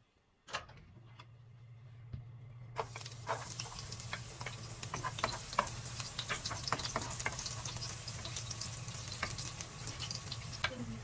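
Food frying in hot oil in a pan while it is stirred. The sizzling starts suddenly about three seconds in, with frequent clicks and scrapes of the utensil against the pan, over a low steady hum.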